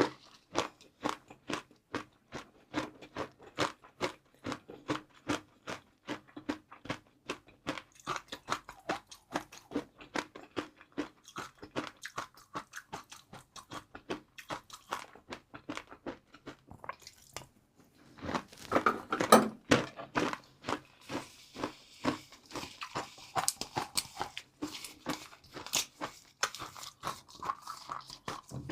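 Close-up chewing of crunchy fried noodles: a steady run of crisp crunches a few times a second. The crunching breaks off briefly past the middle, then comes back with a louder bite.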